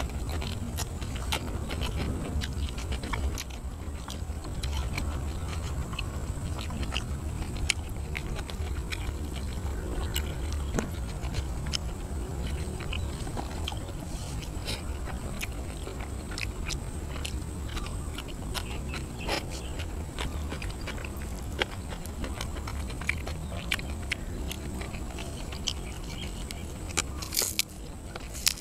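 Close-up chewing and biting of a person eating grilled catfish: many small wet mouth clicks and smacks. Near the end there is a short crisp rustle of leafy greens.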